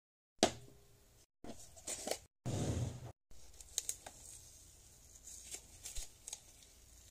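White slime being scraped out of a plastic basin and pressed into a clear plastic tub with gloved hands: sticky crackles and small clicks. It starts suddenly about half a second in, broken into a few short clipped bits at first, then continues as a low steady rustle with scattered crackles.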